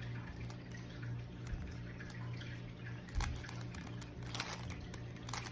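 Plastic Rubik's cube being twisted by hand: a few short clicks and clacks as its layers turn, over a steady low hum.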